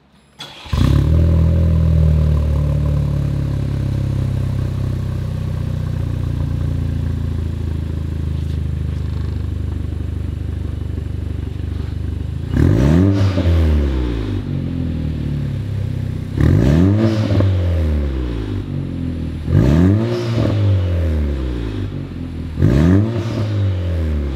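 Vanderhall's 1.5-litre turbocharged four-cylinder engine starts about a second in, breathing through a stainless performance downpipe and the stock exhaust. It idles, fast at first and then settling. From about halfway the throttle is blipped four times, each rev rising and falling quickly, with the blow-off valve venting as boost builds.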